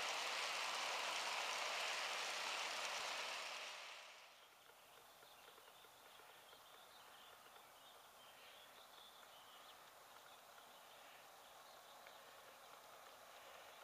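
Loaded G-scale coal hopper cars rolling past close by: a steady rolling hiss of plastic wheels on the track, which cuts off abruptly about four seconds in. After that, faint outdoor background with scattered light chirps.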